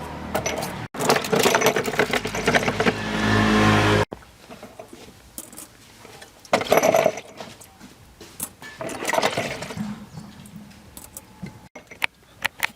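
Farm tractor engine running, growing louder from about a second in, then cut off suddenly about four seconds in. After that, quieter scattered clinks and short knocks of metal parts being handled.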